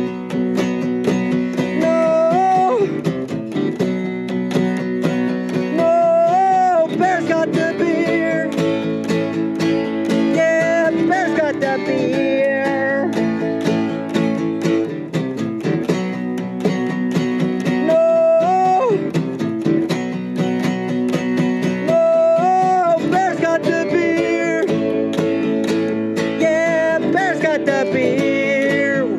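Acoustic guitar strummed with an acoustic bass guitar playing along, a steady country-style song with a sliding melody line over the chords.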